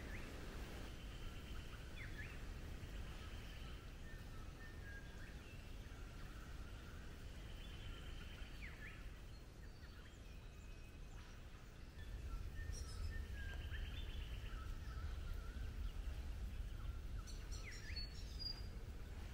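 Wild birds calling in the bush: scattered chirps, short whistled notes and a few quick downward-sweeping calls. Under them runs a steady low rumble that grows louder about two-thirds of the way in.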